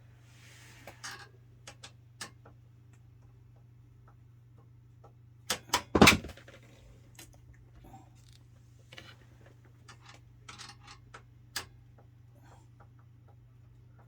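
Scattered small clicks and taps of screws and a screwdriver being handled against a steel computer case, with a short burst of louder knocks about six seconds in, over a faint steady hum.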